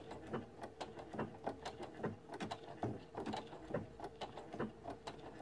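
Sewing machine sewing a blanket stitch, its needle ticking faintly and evenly about four or five times a second over a steady motor hum.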